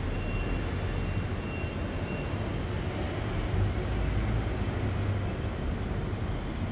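Taiwan Railways local train rolling into the station: a steady low rumble.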